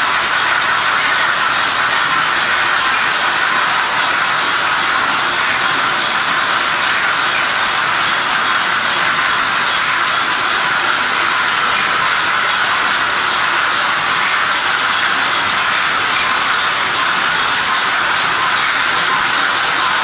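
Märklin model trains running on the layout's tracks: a steady whirring hiss of small motors and metal wheels on rail.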